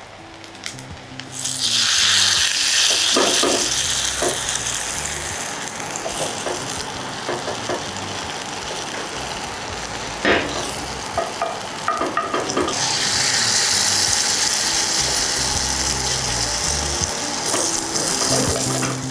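Grated-vegetable fritter batter sizzling in hot olive oil in a cast-iron skillet. The sizzle surges loudly about a second and a half in and again about 13 seconds in, with a few sharp knocks along the way.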